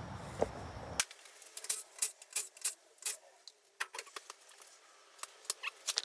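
A steady hiss for about a second, then a run of irregular sharp clicks and light knocks, a dozen or more spread unevenly over the next few seconds.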